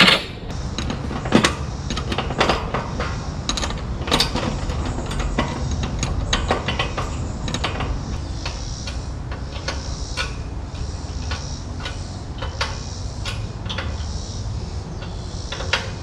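Irregular metallic clicks and knocks of a wrench working on the Humvee's raised exhaust stack and its mounting brackets, thicker in the first half.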